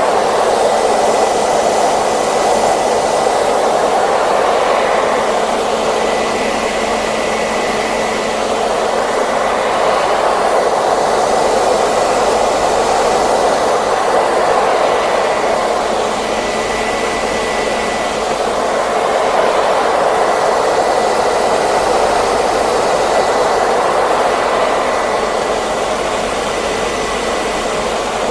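Hairdryer running continuously, a steady blowing rush with a faint high whine from its motor, swelling and easing slightly every few seconds.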